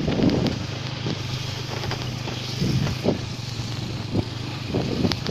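Motorcycle engine running steadily on the move, with a few short louder swells over it.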